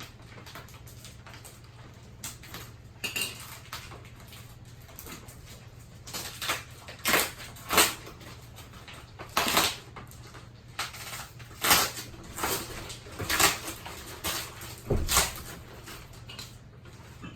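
Plastic wrapping on a vacuum-packed pocket spring mattress rustling and crinkling in irregular bursts as it is handled and cut open with scissors. The bursts come thickest in the second half, over a steady low hum.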